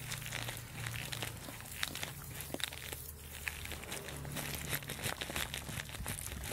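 Young goats and lambs tearing off and chewing mouthfuls of grass close to the microphone: dense, irregular crunching, rustling and ripping of grass blades, with a steady low hum underneath.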